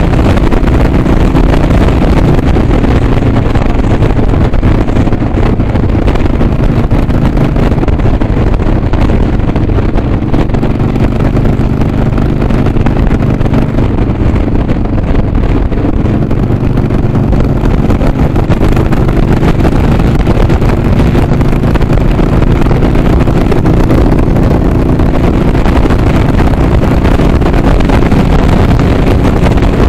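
Harley-Davidson Sportster's air-cooled V-twin running steadily at highway cruising speed, heard from the rider's seat with wind noise on the microphone. The engine note dips briefly about halfway through, then climbs back.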